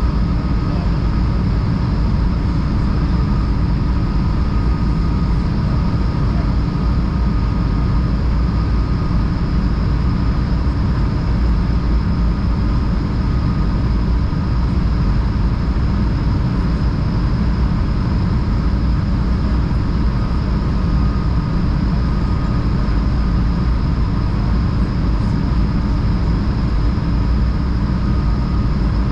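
Steady cabin noise of an Airbus A220 on approach, heard from a window seat. A deep, even rumble of airflow and its Pratt & Whitney PW1500G geared turbofans runs under a faint steady whine, with the flaps extended.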